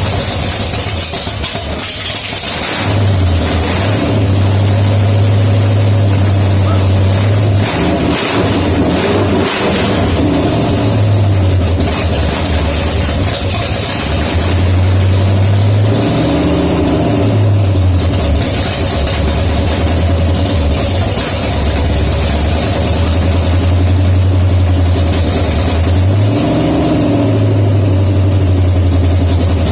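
Freshly rebuilt AMC 360 V8 running loud through open headers on its first start after the rebuild, unsteady for the first couple of seconds and then running steadily, with the revs changing briefly a few times. It is running dry, without coolant, on a short test run.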